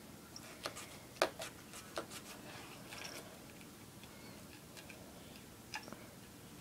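A cat making small clicks and taps as it noses and picks at a small object on a cardboard box, about eight scattered ticks with the loudest just over a second in.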